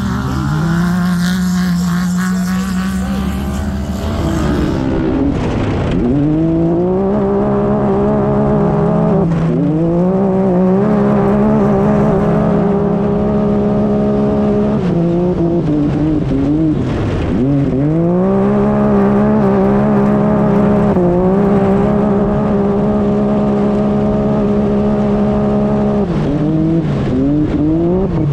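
Side-by-side UTV engine racing on a dirt course, heard close up from the vehicle: the revs climb quickly and hold steady at a high pitch under throttle, then drop sharply about five times as the driver lifts off, before climbing again.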